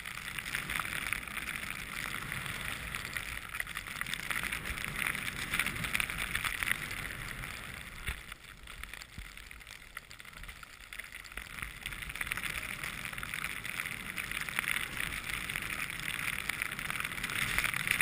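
Skis hissing as they slide and carve through snow, a steady rushing noise that eases off for a few seconds in the middle and then builds again.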